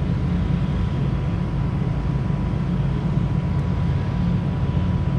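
Steady low mechanical droning hum with a faint high steady tone.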